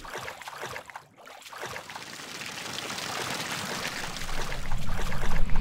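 Rushing water sound effect on the soundtrack of a liquid-logo animation. It drops away about a second in, then swells steadily louder.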